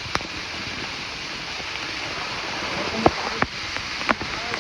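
Waterfall water rushing steadily, with a few sharp clicks or knocks over it.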